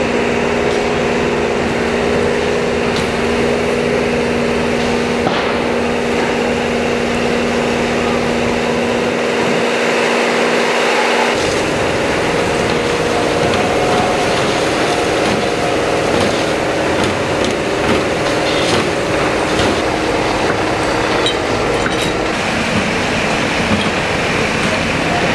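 Police water-cannon truck's engine and pump running close by: a steady loud hum over a rushing noise. About eleven seconds in the hum changes as the truck sprays its water jet.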